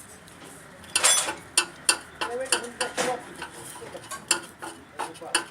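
Metal clinks and knocks from hand work on a combine's grain-tank auger parts: about a dozen sharp metallic strikes over four seconds, starting about a second in. The first and loudest one rings briefly.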